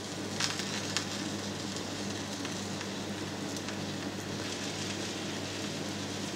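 Sesame-crusted Camembert frying in a little hot oil in a pan: a steady sizzle with scattered small crackles.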